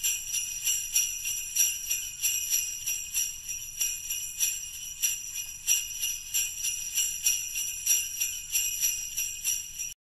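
Sleigh bells shaken in a steady rhythm, about three jingles a second, cutting off suddenly near the end.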